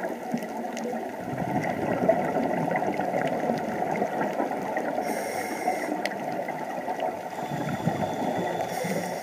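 Muffled underwater noise heard through a camera's waterproof housing: a steady rushing, gurgling water sound that swells after about a second. A brief hiss comes about five seconds in and again at the end.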